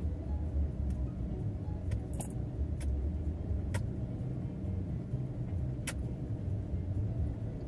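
Steady low rumble inside a vehicle's cab, with about half a dozen short, sharp clicks at irregular intervals.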